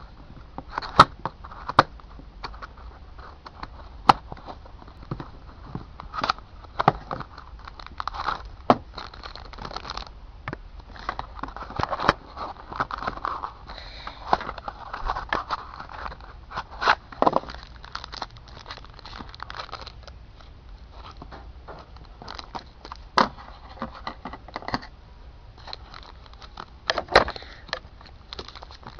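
Beyblade toy packaging being handled and opened: crinkling and tearing, with many irregular sharp clicks and taps.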